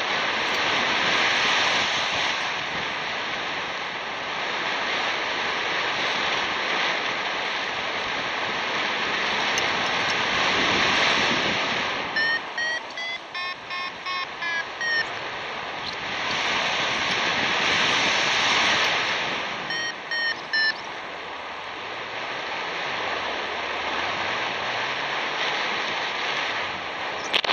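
Wind rushing over the microphone in paraglider flight, surging and easing in waves. About 12 seconds in comes a run of short beeps stepping up and down in pitch from the flight variometer, the tone that signals the glider is climbing in lift, and a shorter run around 20 seconds in.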